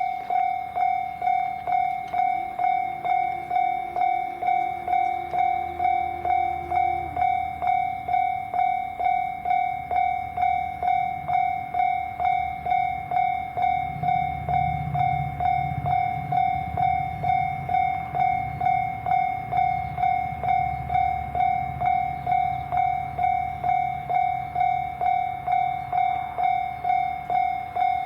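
Japanese level-crossing warning bell ringing in a steady, even rhythm of electronic strikes, with a train rumbling past through the crossing in the middle.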